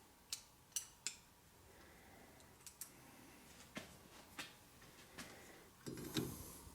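Faint, scattered light clicks and taps of a chainsaw and filing tools being handled, then a short scraping rub about six seconds in, like the first stroke of a file on the chain.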